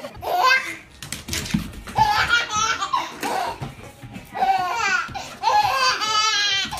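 A baby laughing in several separate bouts, the last one near the end rapid and longest.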